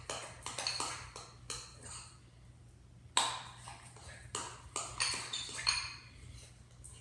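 Utensil stirring thick glue slime in a bowl, clinking and knocking against its sides in irregular strokes, with sharper knocks about three seconds in and around five to six seconds in.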